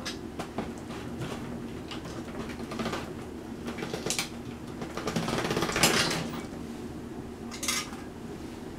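Hand-cranked pasta machine being turned to roll a stiff sheet of polymer clay through its rollers: metallic clicking and clattering, with a louder rattling stretch about five to six seconds in and a short one near the end.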